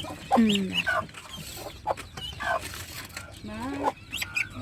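Country hen clucking among her brood of turkey and guinea fowl chicks, which cheep: a string of short, low calls mixed with brief high chirps.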